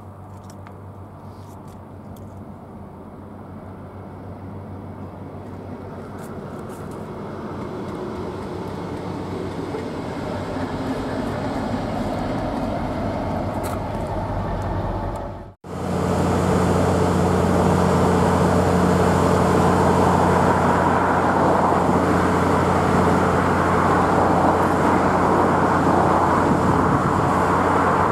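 Diesel freight locomotives running: a Class 60's engine hum growing steadily louder as it approaches, then after a sudden cut the louder, steady running of a Class 66's two-stroke V12 diesel engine as it approaches.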